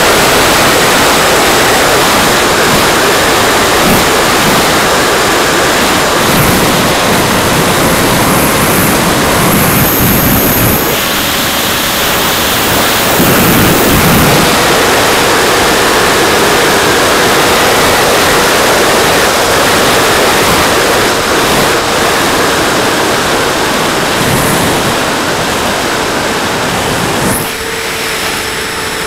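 Heavy wind rush on a microphone riding on an electric RC model plane in fast flight, with the motor and propeller's steady whine underneath. About 27 seconds in, the rush drops and the motor's tone comes through more clearly.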